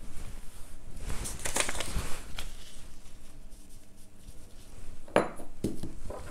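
Hands rustling and smoothing stretch fabric and a paper pattern piece, then metal washers used as pattern weights set down on the paper with two sharp knocks near the end.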